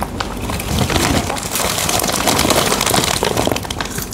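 Thin clear plastic bag being crumpled and handled, a dense crackling rustle.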